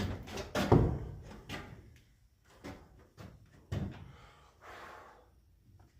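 A series of knocks and clunks from tools and copper pipe being handled. The loudest come in the first second and a half, then sparser, lighter ones follow, with a short hiss about five seconds in.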